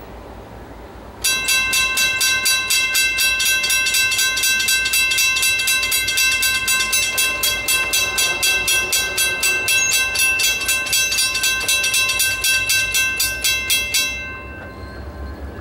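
Railroad grade-crossing warning bell ringing rapidly, about four to five strikes a second, as the crossing activates for an approaching train and the gates lower. It starts about a second in and stops near the end, once the gates are down.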